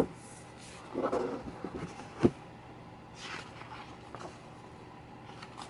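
Hands handling a large paper photobook: the card cover and pages rustle, and a page is turned with a swish about three seconds in. A few sharp knocks of the book being handled, the loudest just past two seconds, over a faint steady hum.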